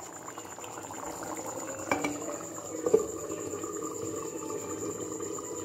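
Chicken curry bubbling at a boil in a clay pot, with two light knocks about two and three seconds in as the clay lid is set on.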